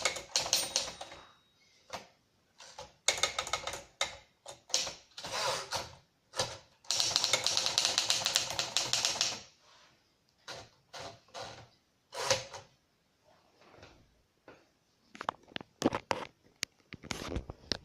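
1956 Remington Travel-Riter portable typewriter being typed: fast runs of keystrokes in bursts, then slower, scattered strikes, with a cluster of loud clacks near the end.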